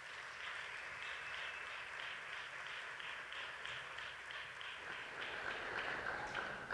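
Audience applauding in an auditorium after a band piece ends, dying away near the end.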